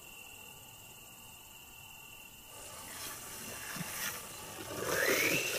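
A steady, high insect trill over faint outdoor hiss. After about two and a half seconds, louder rustling noise comes in, and a short sound rising in pitch follows near the end.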